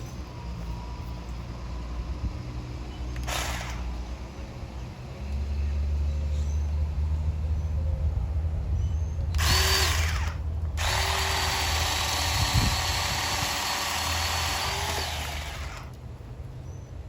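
Ryobi 18-volt 10-inch battery mini chainsaw's electric motor whining in bursts: a brief blip a few seconds in, a short run around the middle, then a steady run of about five seconds that cuts off near the end.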